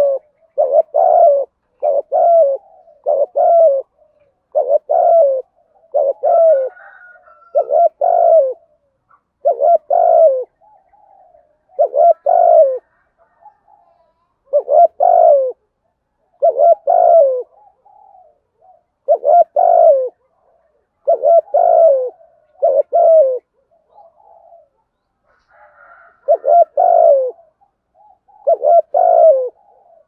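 Spotted dove cooing over and over in the fast, insistent 'thúc gù' style: loud groups of two or three quick coos about every two seconds, with softer coos between them.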